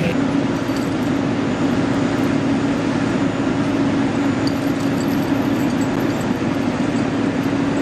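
A large engine running steadily at constant speed, a continuous mechanical drone with a steady hum.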